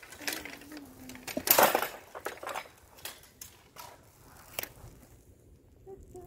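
Clicks and clatter of objects being handled, with one loud clatter about a second and a half in and a sharp click near the end. A low hummed tune stepping down in pitch is heard briefly at the start, and humming resumes just at the end.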